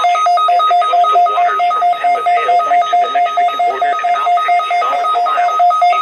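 Weather radio alert beeping on receiving a NOAA Weather Radio Required Weekly Test: a loud, rapid electronic beep in two pitches at once, about five beeps a second.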